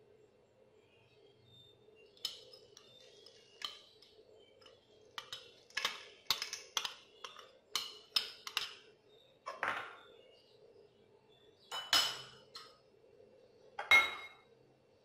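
Spoon scraping and clinking against a small ceramic bowl as crushed roasted peanuts are spooned out onto a noodle salad: a string of short clinks and scrapes, with the two loudest clinks near the end.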